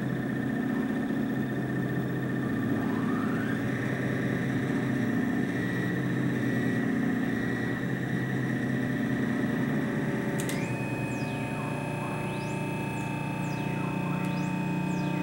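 Electronic synthesizer drone: several steady tones over a low hum. A tone glides upward a few seconds in. About two-thirds through there is a click and the top tone steps up in pitch, followed by quick high sweeps, as if shifting with the control knobs.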